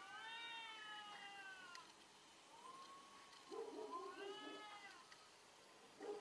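Cats yowling at each other in a fight standoff: long, wavering cries. The second cry breaks into a harsher, lower growl partway through, and a third begins near the end.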